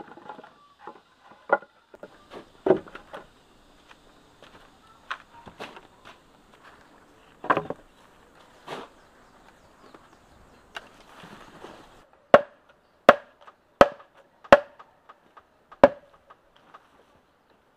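Machete chopping bamboo: five sharp, ringing strokes about three-quarters of a second apart in the last third, the last after a short pause. Before them, scattered wooden knocks and clatters of bamboo poles being handled.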